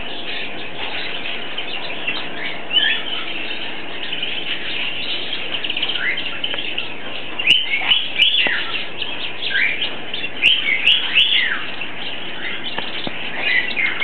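Domestic canary singing a long, continuous song of rapid twittering trills, with louder sweeping notes in the second half.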